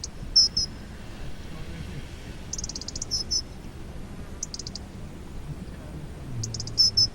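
A small animal calling high and repeatedly, about every two seconds: each call is a quick rattling trill followed by two short clear notes.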